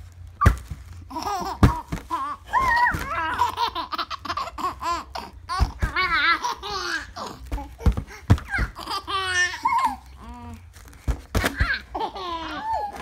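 A five-month-old baby laughing in repeated bursts while batting and mouthing a foil balloon, with sharp crinkles and taps from the foil.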